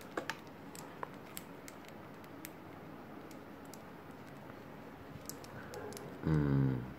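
Faint scattered clicks and rustles of white wired earphones and their cable being handled and untangled against the plastic box tray. A short hummed voice sound comes near the end.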